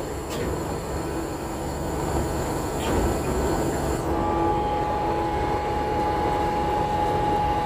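Ship under way: the steady low rumble of its engine mixed with wind and sea rushing past the bow. A steady whine joins in about four seconds in.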